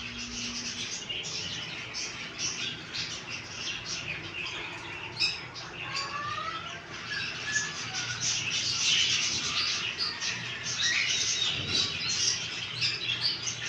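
A dense chorus of many small birds chirping and twittering all at once, with a few short whistled gliding notes about six seconds in.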